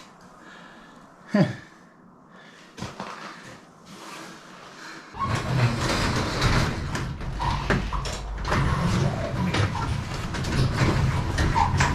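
A sharp metallic clank, then a few knocks, then about five seconds in a loud steady machine sound starts up, a low wavering rumble with rattles and clicks in it.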